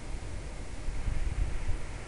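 Steady background hiss with an uneven low rumble; no distinct event.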